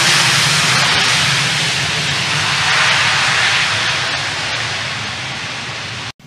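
Jet airliner's engines at takeoff power during the takeoff roll: a loud, steady roar with a hissing top that slowly fades as the aircraft moves away, then cuts off suddenly near the end.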